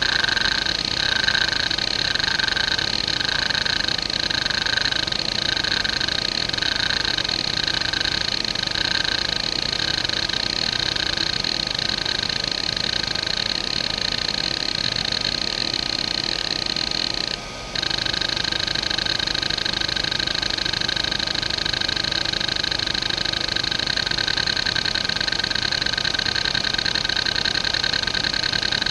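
A JVC JDE2042M10-1, a 2.5-inch single-platter 40 MB hard drive from 1992, seeking continuously under an hdmotion seek-pattern test, with its spindle motor barely heard. The head actuator's chatter swells and fades about once a second. After a brief break about 17 seconds in, it settles into a faster, even pattern.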